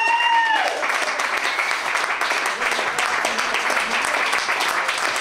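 Audience applauding steadily. A high, clear tone bends downward and fades within the first second.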